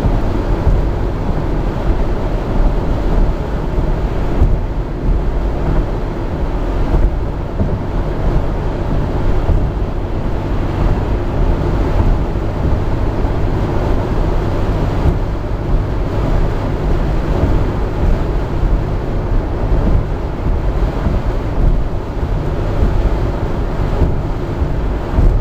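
Steady rumble of a Jeep Grand Cherokee driving at road speed, heard from inside the cabin: low road and engine noise with no distinct events.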